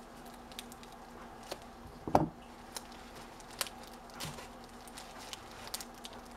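Plastic packaging being handled and opened: scattered small crinkles and clicks, with one louder bump about two seconds in.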